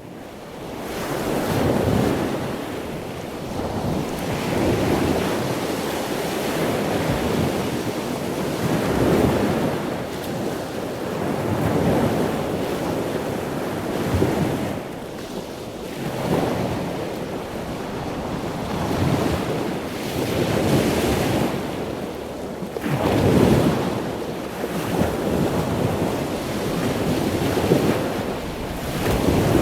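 Ocean surf: a continuous wash of waves that swells and eases every few seconds, fading in over the first couple of seconds.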